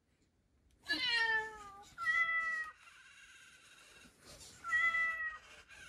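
metaCat robotic cat playing recorded cat meows through its speaker: three meows, the first falling in pitch about a second in, the next right after it, and a similar one near the end.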